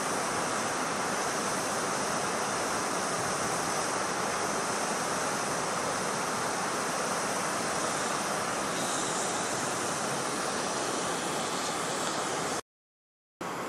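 Steady rush of running water, an even noise with no pulses or changes. It cuts off abruptly near the end.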